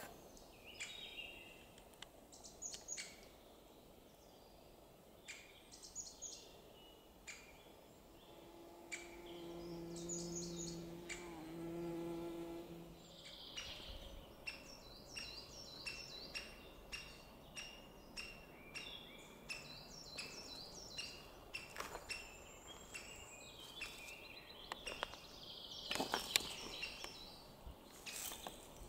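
Forest birds chirping, then from about halfway a steady run of short, sharp calls about two a second: great spotted woodpecker nestlings begging from their nest hole. A low insect buzz for a few seconds near the middle.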